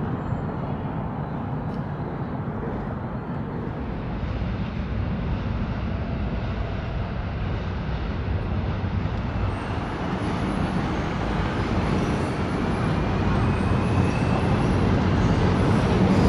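Low, steady rumble of a Seoul Subway Line 7 train and traffic on the double-deck Cheongdam Bridge overhead. It grows louder as the train nears, with a faint rising whine about twelve seconds in.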